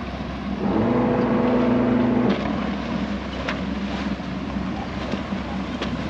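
Boat engines running in a harbour channel: a low, steady rumble with wash and wind noise. About a second in, a steady droning tone rises above it for about a second and a half.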